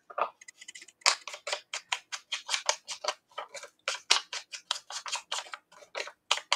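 Ink blending tool brushed over the edges of a piece of paper in quick rubbing strokes, about five a second, starting about a second in.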